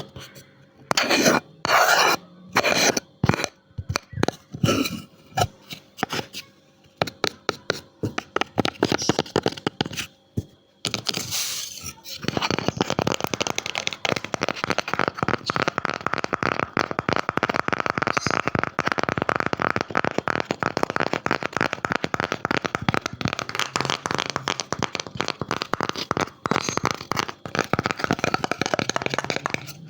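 Tapping and scratching on a wooden object for ASMR. It starts as separate taps and scrapes, then turns partway through into fast, continuous scratching and rustling on the wood.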